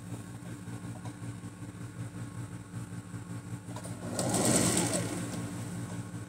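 Singer domestic sewing machine stitching pleats into a waistband seam, its motor running steadily, getting louder for about a second around four seconds in.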